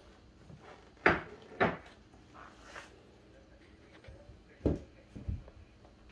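Cats wrestling on a hardwood floor: four dull thumps in two pairs as their bodies hit the boards, the loudest about a second in, with lighter scuffling between.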